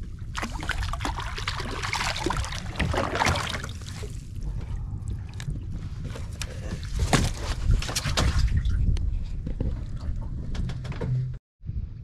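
A hooked Indian salmon thrashing and splashing at the surface beside a wooden boat as it is pulled in on a handline, then sharp knocks and handling noise around the middle as the fish is brought aboard, over a steady low rumble. The sound cuts out briefly near the end.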